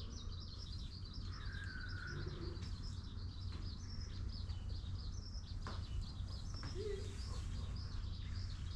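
Small birds chirping, many short high chirps in quick succession, with one longer whistled note about a second and a half in. A low steady rumble runs underneath.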